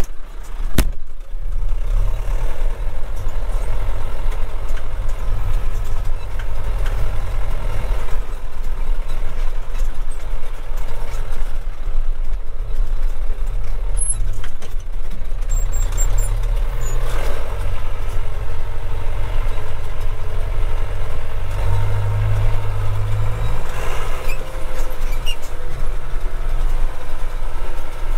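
John Deere 6200's 3.9-litre four-cylinder turbo diesel running under way, heard from inside the tractor cab as a steady low drone.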